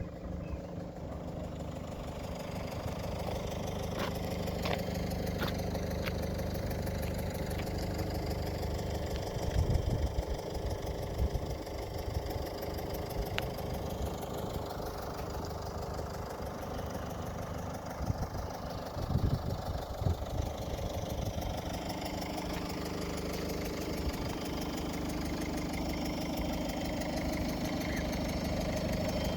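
An engine idling steadily, with a few low thumps about ten seconds in and again around twenty seconds.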